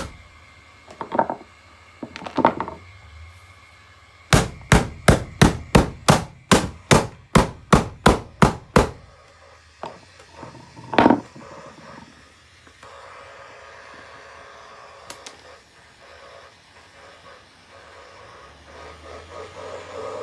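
Hammer blows smashing an old alarm clock: two hits, then a fast run of about fourteen blows at roughly three a second, and one more heavy blow about eleven seconds in; the rest is much quieter.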